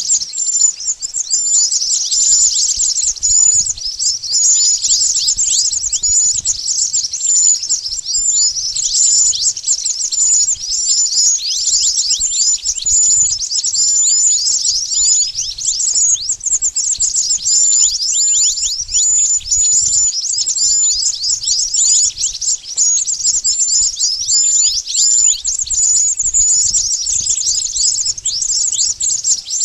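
Mantenan bird lure call: dense, high-pitched bird chirping, a rapid run of short notes, many sweeping quickly downward, with no pause.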